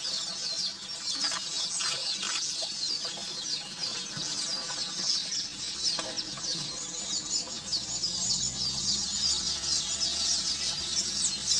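Dense, continuous chattering of many small birds: rapid short high chirps overlapping throughout.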